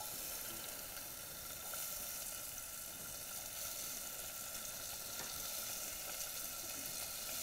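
Chopped red onions frying in hot fat in an aluminium pot: a steady sizzle that starts suddenly as they go in.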